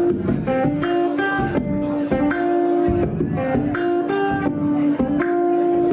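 Ukulele strummed in a steady rhythm, a repeating pattern of chords.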